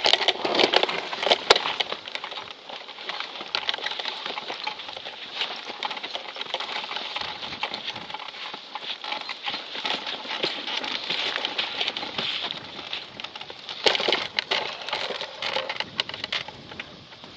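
Airflow over a hang glider in flight hitting the camera's microphone: an uneven hiss full of small crackles and rattling clicks. It comes in louder gusts right at the start and again about fourteen seconds in.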